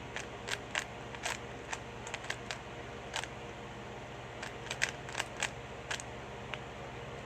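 Plastic 3x3 Rubik's cube being turned quickly, its layers clicking in fast irregular runs, with a short break about halfway through.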